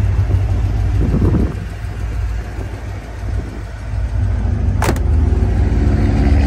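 A 350 V8 with headers and Flowmaster mufflers idling with a steady low exhaust rumble. About five seconds in, the passenger door is shut with a single sharp thud.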